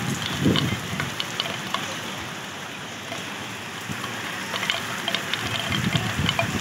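Rain falling steadily, with scattered sharp drip ticks throughout and a couple of low rumbles near the start.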